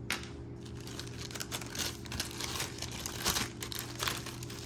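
Clear plastic zip-top bag crinkling as hands handle and open it: a run of irregular crackles.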